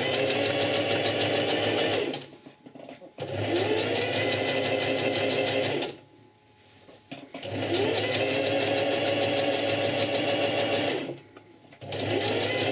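Electric sewing machine stitching in four short runs with brief pauses between them. At the start of each run the motor whine rises and then holds steady over a fast needle clatter. The machine is sewing a line of topstitching parallel to a pocket opening.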